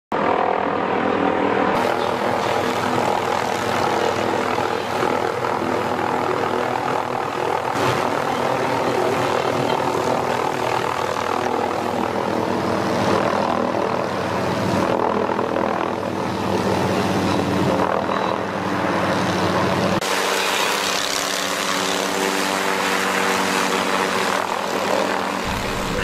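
Helicopter running overhead, a steady rotor and engine sound that changes abruptly about twenty seconds in.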